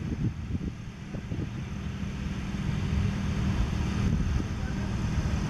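A steady low engine-like hum that grows slowly louder, with faint voices in the first second or so.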